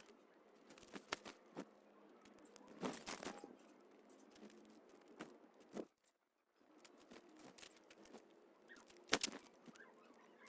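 Small birds pecking and hopping at scattered birdseed: irregular light taps and clicks, with a cluster about three seconds in and the loudest tap about nine seconds in.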